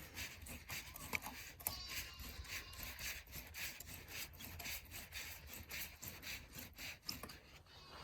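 Faint repeated scraping and rubbing of a hand tool working at a hose clamp on the upper water pipe, in short strokes about twice a second with a few small clicks.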